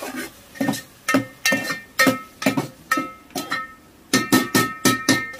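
Metal spoon knocking and scraping against a stainless steel pot while stirring onions frying in oil. There are quick, irregular strokes, two to three a second, and each one leaves the pot ringing briefly.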